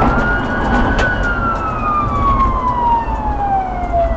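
Police car siren on a slow wail, falling steadily in pitch through one long cycle, over engine and road rumble. A single sharp click about a second in.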